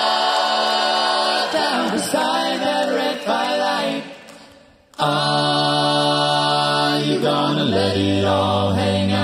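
A five-man a cappella group singing held chords in close harmony, all voices and no instruments. The chord dies away about four seconds in, and a loud full chord comes back in suddenly a second later. Near the end the bass voice drops to a lower note.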